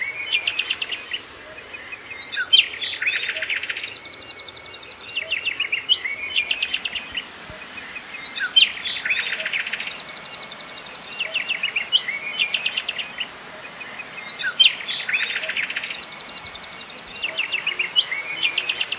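A songbird repeating the same short phrase about every three seconds: a run of quick, high ticking notes followed by a fast rattling trill.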